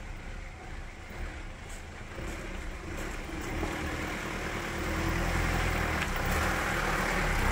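Mitsubishi Pajero SUV's engine pulling the vehicle up a muddy dirt track, growing steadily louder as it approaches.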